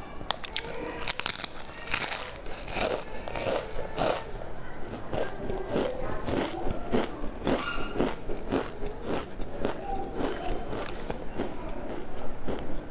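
Stacked potato crisps being bitten several at a time and chewed, close to a clip-on microphone: many sharp crunches in quick succession.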